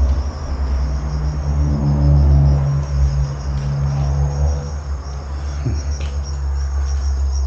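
Crickets chirping steadily, over a low rumble and engine hum from a passing vehicle that swells and then fades about five seconds in.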